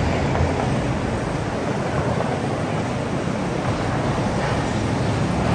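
Steady, even roar of city street traffic, with no single vehicle or event standing out.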